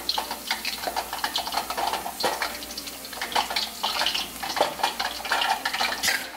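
Funnel cake batter frying in hot oil in a wok: a dense, irregular sizzle and crackle of many small pops as the batter is squeezed into the oil.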